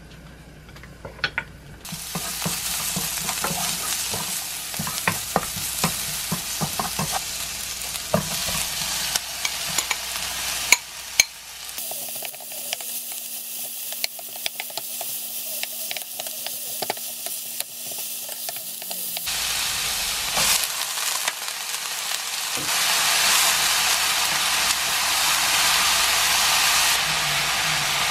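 Garlic, then onion and thinly sliced beef brisket, sizzling in oil in a nonstick frying pan, stirred with a spoon that clicks and scrapes against the pan. The sizzle starts about two seconds in, comes in several stretches, and grows louder near the end as bean sprouts fry.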